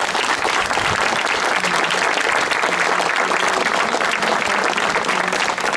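A crowd of onlookers applauding steadily: many hands clapping together.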